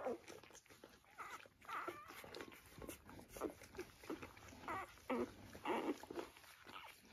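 Newborn golden retriever puppies squeaking and whimpering in short, wavering, high calls, several in quick succession, while they nurse.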